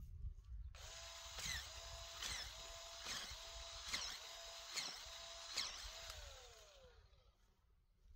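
Electric drill turning an earth auger into untilled soil to bore a planting hole. The motor whirs steadily with a brief dip about every 0.8 seconds, then is let off a little after six seconds and winds down with a falling pitch.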